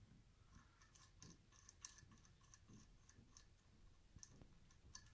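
Near silence with faint, irregular small clicks of nuts being spun off bolts by hand in the metal track of an LED light bar.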